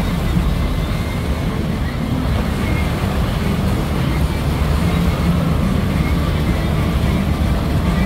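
Water rushing and splashing as it pours off the water ride's tubs into the channel, over a steady low rumble.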